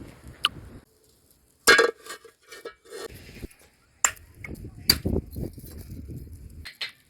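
Scattered clinks and knocks of cookware and utensils being handled during food preparation, broken by short gaps of silence.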